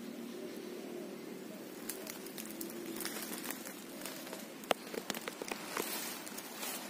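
Dry leaves and twigs crackling and rustling in scattered sharp clicks that grow busier from about two seconds in, over a faint steady low hum.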